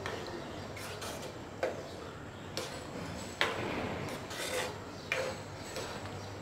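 A metal spoon stirring thick dal in a kadai, scraping and knocking against the pan about five times, over a low steady hum.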